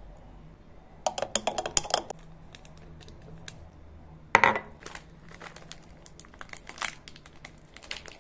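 A quick run of clinks and rattles about a second in, then a single sharp knock about four seconds in. After that comes soft crinkling as a coffee stick sachet is handled and torn open.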